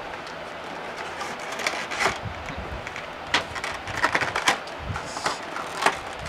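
A cardboard Funko Pop box being opened by hand and the figure pulled out in its clear plastic packaging: irregular crinkling and clicking of plastic and cardboard, with a few sharper crackles.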